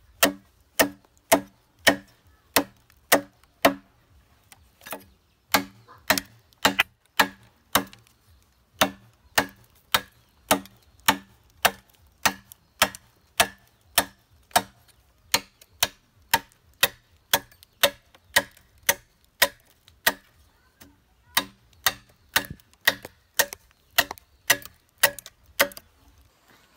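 Machete hacking at the cut end of a green bamboo culm, trimming it: sharp, evenly paced chops at about two a second, with short breaks about four and about twenty seconds in.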